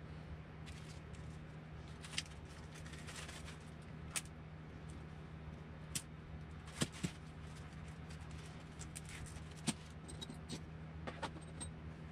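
Small metal hand tools and parts being picked up and set down on a workbench mat: a dozen or so scattered light clicks and clinks over a faint steady hum.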